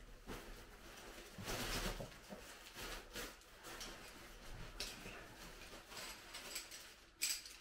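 Soft rustling of tent fabric in several bursts, the loudest about one and a half seconds in, as a packed Tarptent Scarp 1 tent is unrolled and handled.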